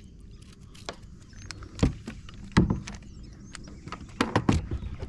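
A few sharp knocks and thumps on a plastic sit-on-top kayak's hull, four or five strikes spread over the seconds, the loudest about two and a half seconds in.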